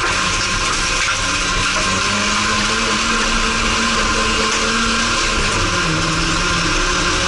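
Race car engine heard from inside the cockpit, running hard under load on a dirt track, with a loud steady rush of tyre and gravel noise. The engine note drops about five seconds in, then climbs again.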